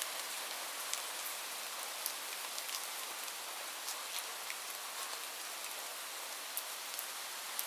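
Light rain falling steadily, an even hiss with scattered individual drops ticking on a surface.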